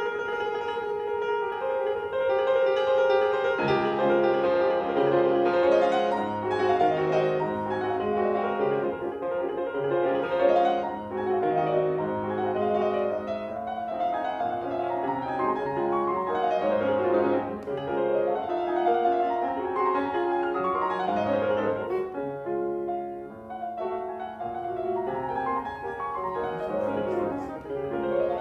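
Background piano music: a melody over low bass notes that change about once a second.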